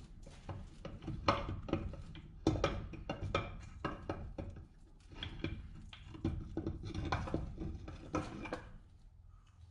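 Metal transfer-case parts clinking and knocking against each other as the case is worked apart by hand: irregular sharp clacks that thin out near the end.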